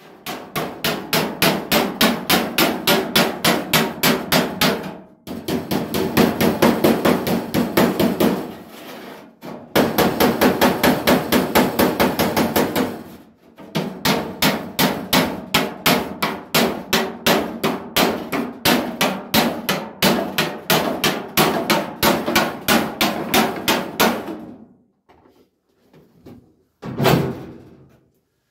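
Hand hammer tapping rapidly on the steel front wing of a Mk1 Ford Escort, about five ringing blows a second. The blows come in four long runs with short pauses, then a brief burst near the end. The wing's edge is being hammered to close up a wide panel gap.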